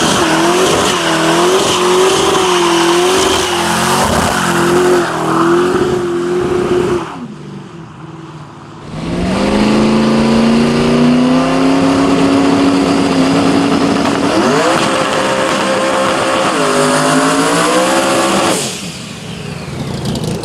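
Muscle car V8 held at high revs during a burnout, the engine note wavering over the hiss and squeal of spinning tyres. The revs drop off about seven seconds in, climb again about two seconds later, and fall away near the end.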